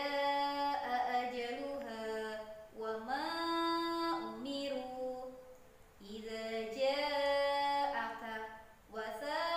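A woman's voice chanting Arabic words from a Qur'an-reading primer in the Ummi method's melodic recitation: about three sung phrases with long held, sliding notes and short breaths between them.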